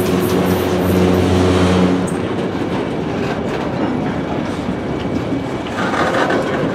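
Freight cars rolling past close by: steel wheels running on the rail with a steady rumble and clatter. A low hum rides over it for the first two seconds.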